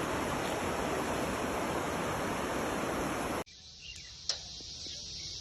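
Loud, steady rush of flowing floodwater. It cuts off abruptly about three and a half seconds in, and a much quieter steady high hiss follows, with one sharp click.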